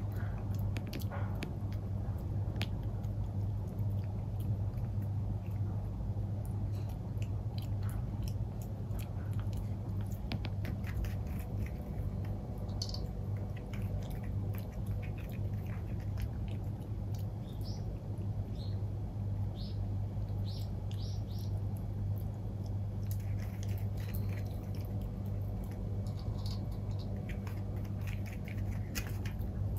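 Maltipoo puppy chewing food, a scattering of small clicks and bites over a steady low hum.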